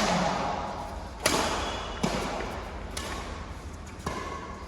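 Badminton rackets hitting a shuttlecock in a rally: about five sharp hits, roughly one a second, each echoing briefly.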